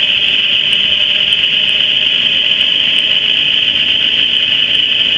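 Steady whining roar from a 2013 GMC Terrain's driveline while driving, picked up by a chassis-ears sensor clamped to the transfer case bracket where the CV axle shaft mounts. The mechanic finds this among the loudest points and takes it for a problem in the transfer case.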